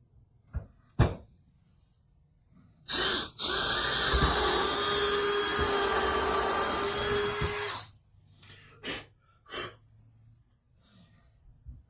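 Power drill boring starter holes in a wooden board: a short blip about three seconds in, then a steady run of about four seconds that cuts off abruptly. A few sharp knocks come before and after.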